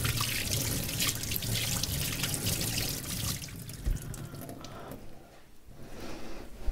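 Water running from a kitchen tap as buttery fingers are rinsed, the flow stopping a little past halfway.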